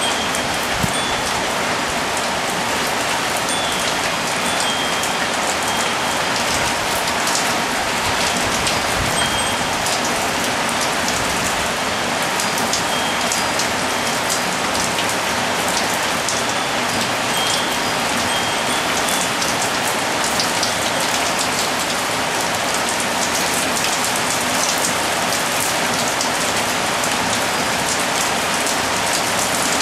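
Steady, heavy tropical rain shower falling on a balcony, a dense hiss full of close drop splashes, with a few faint, brief high wind chime tones now and then.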